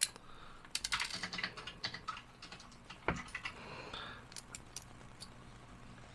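Light clicks and taps of small model-kit parts being handled and fitted together by hand, in a quick flurry about a second in, then a single click and a few scattered ones later.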